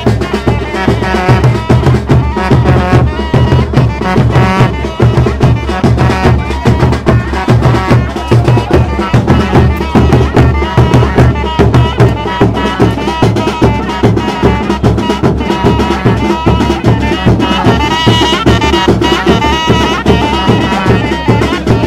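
Traditional folk music: drums keep a steady beat under a wavering melody line.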